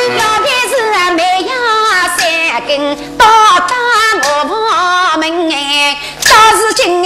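A woman singing a Yao opera aria in a high voice, in phrases that slide between notes, over traditional Chinese instrumental accompaniment.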